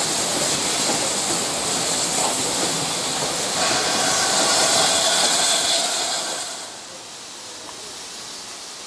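Steam train pulling slowly through a station behind a GWR tank locomotive: a loud, steady hiss of steam over the rolling of the carriage wheels. About two thirds of the way through it gives way to a quieter steady hiss from a standing steam locomotive.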